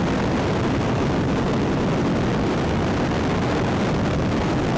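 Helicopter in flight, heard from aboard: a loud, steady rush of engine and rotor noise.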